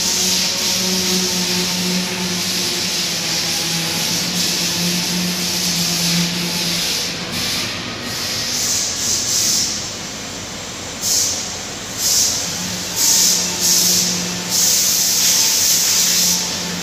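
Powder coating line equipment running: a steady fan hum with a hiss of moving air. From about two-thirds of the way in come several short, loud bursts of hissing air about a second apart, then a longer one.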